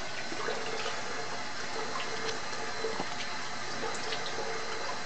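Bathroom sink faucet running steadily while water is splashed onto the face by hand, with small splashes and drips over the running water.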